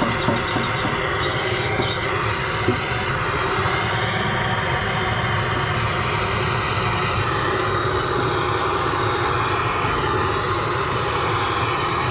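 Plumbing torch flame running with a steady roar, heating a soldered copper joint to melt the old solder, with a few sharp clicks in the first three seconds.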